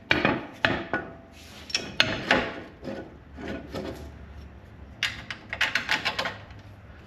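Metal clinks, knocks and scrapes of hand work on a Jeep's front steering parts, as the old part is taken out and the new one fitted. A few separate knocks in the first couple of seconds, then a quick run of rattling clicks about five seconds in.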